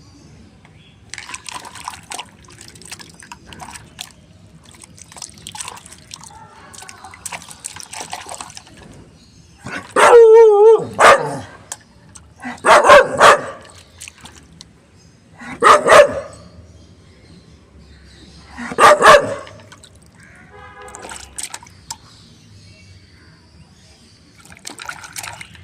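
A dog barking: four loud barks a few seconds apart, the first drawn out with a wavering pitch. Softer, scattered noises come before them.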